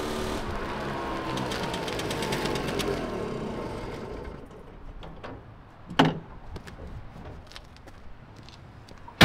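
Piaggio Ape 50's small two-stroke engine running as the three-wheeler pulls up, its pitch falling as it slows, then fading out after about four seconds. A sharp clack of the cab door comes about six seconds in, and the door slams at the very end.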